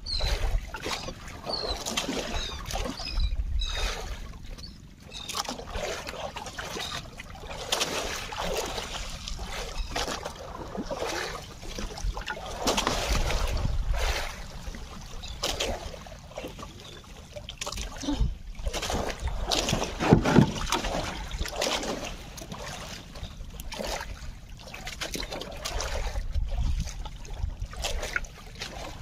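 Sea water splashing and sloshing irregularly against the hull of a small fishing boat out at sea.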